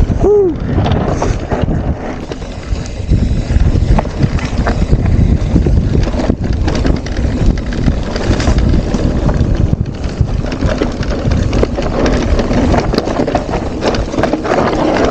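Mountain bike clattering down a rough, rocky trail, with frequent knocks and rattles as the tyres and frame hit stones, over heavy wind buffeting the camera microphone.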